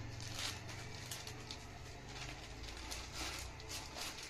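Faint room background: a low steady hum that fades about halfway through, with soft scattered rustles and light taps.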